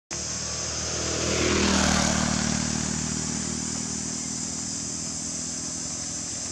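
A motor vehicle drives past on the road, its engine and tyre noise swelling about a second in, loudest around two seconds, then fading to a low engine hum.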